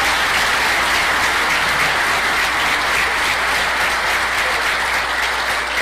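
Audience applauding steadily: a dense, even wash of clapping.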